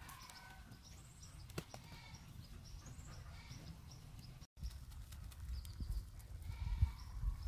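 Outdoor ambience by a wood cooking fire: small birds chirp in short repeated high notes, the fire gives a few sharp crackles, and a distant animal calls near the start and again near the end.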